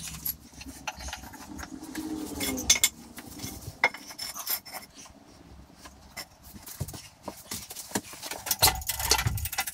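Scattered metallic clinks, knocks and scrapes from handling a milling machine's cast-iron base on timber blocks beside a pallet truck, with a few heavier thuds near the end.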